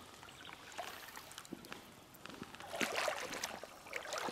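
Shallow river water trickling over stones, with scattered small splashes and sloshes that come more often about three seconds in.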